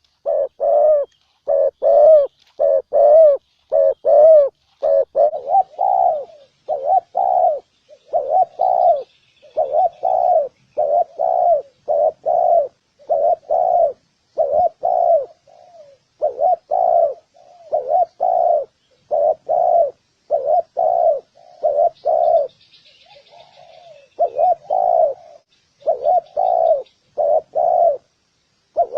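Spotted doves cooing: a long run of short, low coos, about two a second, broken by brief pauses. Faint high chirps of small birds sound above them now and then.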